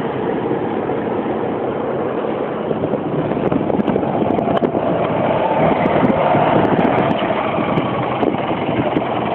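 Steady vehicle engine and road noise heard through an open car window.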